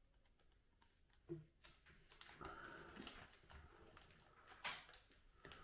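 Faint crinkling and small clicks of ductwork tape being pulled off its roll and pressed around a plastic duct adapter, with a sharper click about a second in and another near the end.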